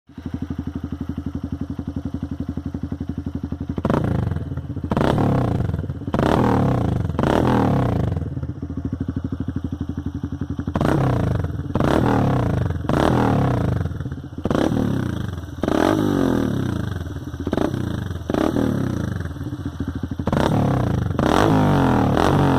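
Honda Bros 150 single-cylinder four-stroke engine breathing through a BRC aftermarket exhaust tip. It idles with a steady, loud exhaust note, then is blipped over and over, each rev dropping back toward idle, with a short idle pause in the middle. Near the end it is held at higher revs.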